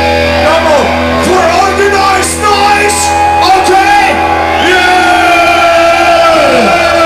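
Heavy metal band playing live, with the singer shouting lines and then holding one long note that drops off at its end, over loud guitars and drums.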